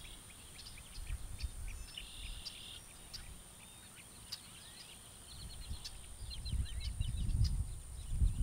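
Birds chirping in short calls, with a brief buzzy trill and, later, a quick run of notes, over a steady high-pitched hum. A low rumble builds in the last two seconds.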